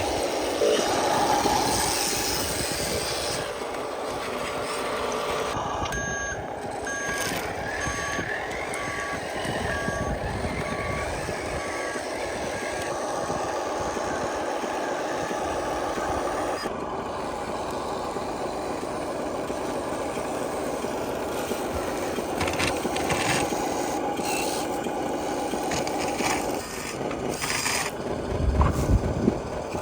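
Remote-control scale truck running steadily, with a reversing alarm beeping in short on-off tones from about six seconds in for several seconds. Some louder knocks come near the end.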